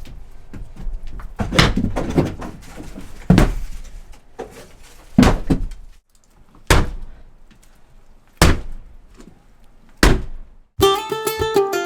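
Six heavy blows on a wooden structure being demolished, each a loud thunk, coming about every second and a half to two seconds. Acoustic guitar music comes in near the end.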